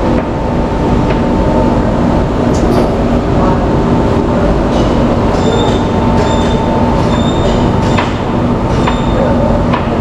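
Steady loud mechanical rumble with a low hum, a few sharp clicks, and a high metallic squeal that comes and goes from about halfway through to near the end.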